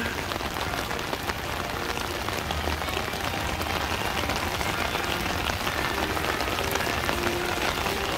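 Rain from a passing squall falling steadily, a dense, even hiss of rain on wet ground.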